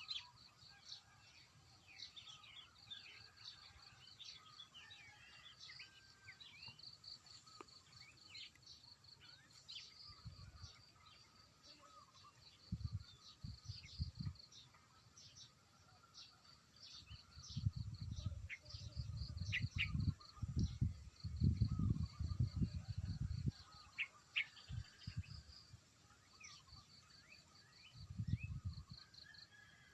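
Outdoor ambience of small birds chirping, with a fast, evenly pulsed high trill running on behind. In the second half come several low rumbles, the loudest sounds, heaviest about two-thirds of the way through.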